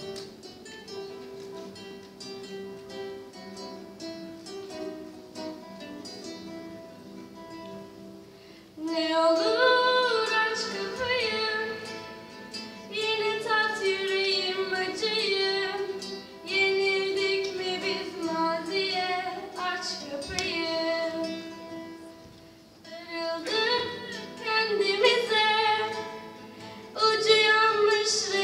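Several classical guitars picking a soft introduction, then a young female singer comes in loudly through a microphone about nine seconds in and sings over them in phrases with short pauses.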